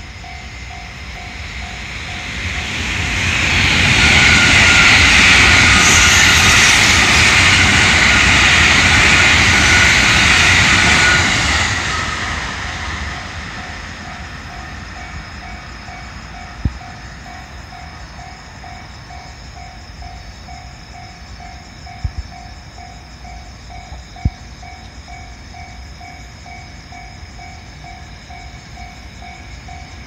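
Japanese railway crossing bell clanging in a steady, fast repeating rhythm, while a train passes through the crossing. The train is loud for about ten seconds from about three seconds in, then fades away. A few sharp knocks come later, after the train has gone.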